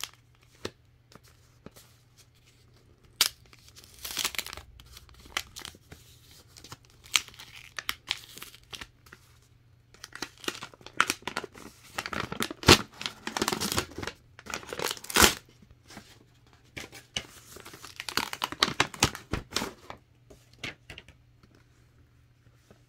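White gift-wrapping paper being unfolded and pulled off a box: irregular rustling and crinkling with tearing, busiest in the middle with a couple of sharp loud snaps, then dying away near the end.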